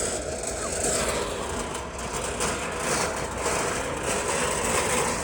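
Steady noise of a running vehicle.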